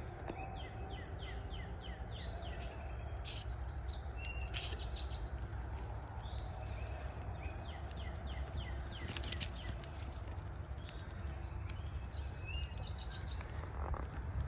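Songbirds singing: twice a run of quick falling notes, and twice a short high trill, over a steady low rumble.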